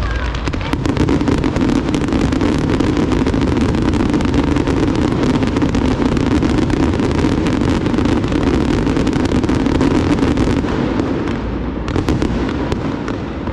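Large aerial fireworks display: a dense barrage of shells bursting and crackling, many reports a second over a continuous rumble, thinning briefly near the end.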